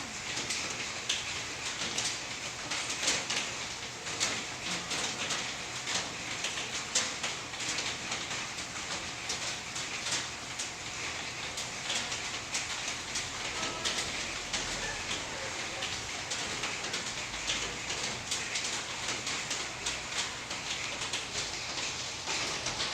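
Small firework crackling steadily, a dense stream of rapid, irregular little pops and fizzing.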